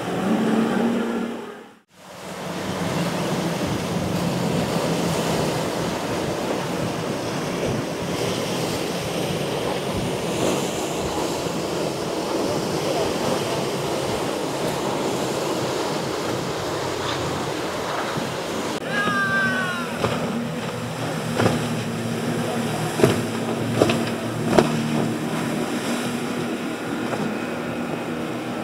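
Boat engines running over churning, wavy water: a steady rush of water and motor noise that cuts out briefly about two seconds in. A short squeal and a few sharp knocks come in the second half.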